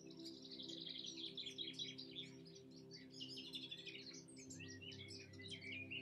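Several wild songbirds singing at once, a dense chorus of quick chirps and trills, over soft background music with low held tones.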